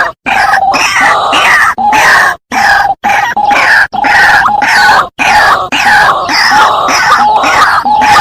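White-breasted waterhen (ruak-ruak) calling loudly and repeatedly: harsh croaking calls in quick succession. The run is broken by a few abrupt cuts to dead silence.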